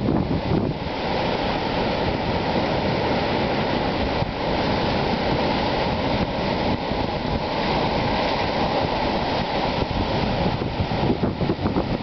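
Ocean surf washing in over rocks and onto the sand as a steady rushing wash. Wind buffets the microphone, making the low rumble more uneven near the end.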